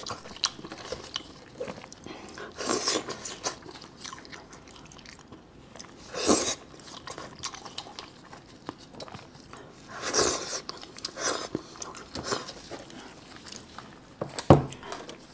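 Close-miked eating of a sauced sheep's head: irregular wet tearing and squelching as the meat is pulled apart by hand, with crunching and chewing. A sharp snap comes near the end.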